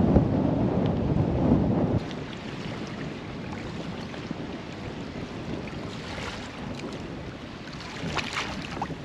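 Strong wind buffeting the microphone, a loud low rumble that stops abruptly about two seconds in. Then a quieter wash of wind and choppy water at a sailboat's bow, with a few brief sharper sounds about six and eight seconds in.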